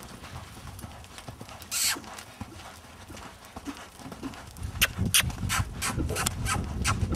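Hoofbeats of a yearling stallion loping on sand footing, a run of dull thuds. There is a short rush of noise about two seconds in, and the strides come louder and sharper from about two-thirds of the way through.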